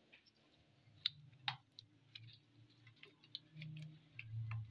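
Hands squeezing and turning raw chicken pieces in a yogurt marinade in a glass bowl: faint, irregular clicks and taps, with a faint low rumble near the end.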